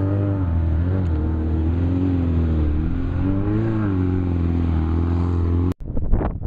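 Off-road race vehicle's engine running under varying throttle, its pitch rising and falling. Near the end the sound cuts off abruptly and gives way to gusts of wind buffeting the microphone.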